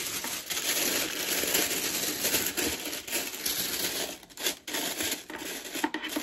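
Paper rustling and crinkling as a sneaker box is opened and the paper wrapped around the shoes is handled, with a brief lull a little past four seconds in.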